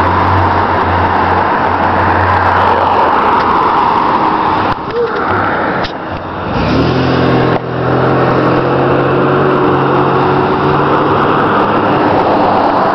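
Street traffic: cars passing with a steady rush of tyre and engine noise. About halfway through, a nearby engine's steady hum comes in and holds for several seconds, with a few knocks around the middle.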